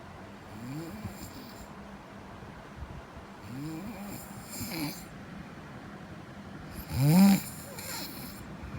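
Snoring: three snores a few seconds apart, each rising in pitch, the last, about seven seconds in, the loudest.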